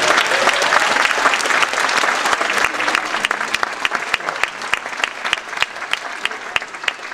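Audience applauding, dense at first and thinning into scattered separate claps that fade away.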